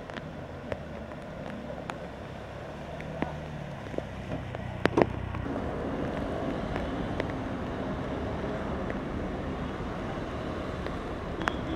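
Rain and traffic on a flooded street: a vehicle engine hums for the first half with scattered sharp clicks and a louder knock about five seconds in, then a steady, even wash of rain noise.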